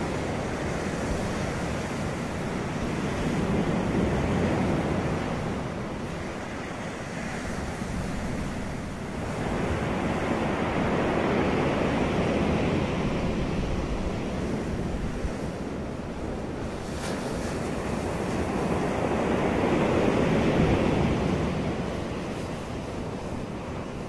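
Ocean surf breaking on a beach: a continuous rush of waves that swells and eases, with three louder surges about eight seconds apart.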